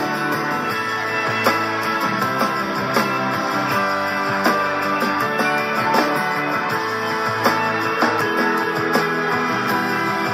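Guitar being played, a continuous run of plucked and strummed notes with strong accents recurring about every second and a half.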